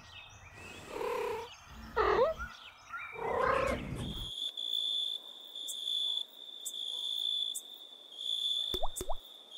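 A few cat meows standing in for spoken lines over the first four seconds, then crickets chirping in a steady, pulsing trill for the rest.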